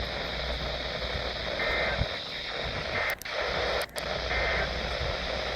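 Weather radio receiver hissing with static and no voice, with a few short high tones and two brief dropouts in the middle.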